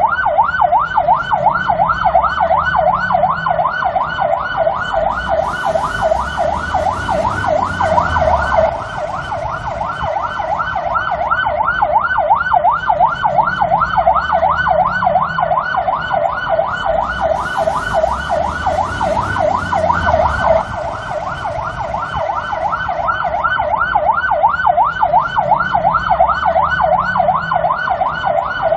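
Irish police car siren on a fast yelp, its pitch sweeping rapidly up and down several times a second, with a low rumble underneath.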